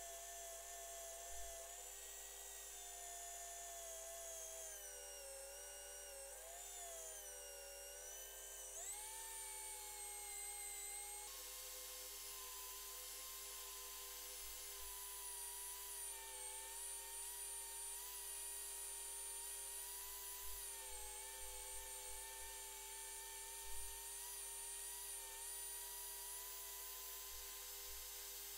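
Electric drill spinning a cloth buffing wheel with yellow compound while an aluminium bicycle hub is polished against it. It gives a faint, steady motor whine whose pitch sags and wavers for a few seconds about a third of the way in, then settles.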